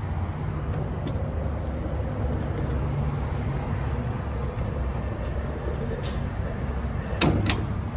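High-flow diesel pump filling a pickup's tank: a steady low rush of fuel through the nozzle. Near the end come two sharp clicks, a fraction of a second apart, as the nozzle shuts off.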